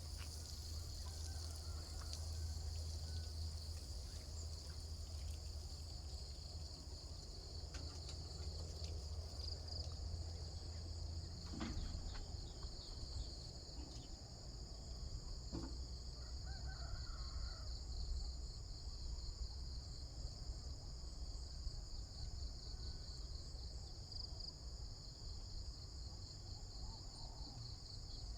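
Insects trilling in a steady, high-pitched drone over a low, steady rumble, with a couple of faint knocks partway through.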